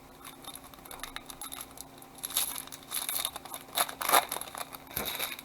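A trading-card pack wrapper being torn open and crinkled, in irregular rustling bursts that are busiest from about two seconds in.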